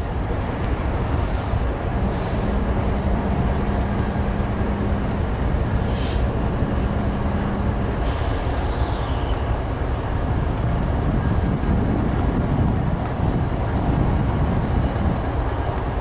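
BNSF GE diesel-electric locomotive running light, its engine rumbling as it rolls slowly past. A steady hum runs for several seconds, with a brief hiss about six seconds in.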